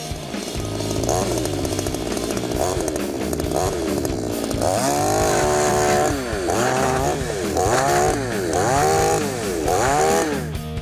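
Chainsaw running and revving in repeated rises and dips as its chain cuts through large plastic soda bottles, the pitch dropping each time the chain bites.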